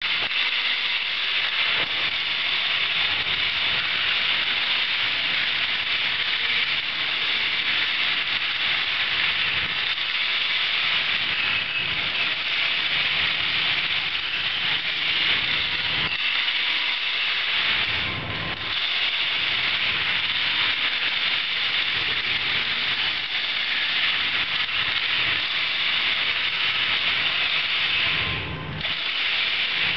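Loose stones tumbling inside slowly turning bicycle-wheel drums lined with chicken wire, a steady rushing rattle that dips briefly twice, once past the middle and once near the end.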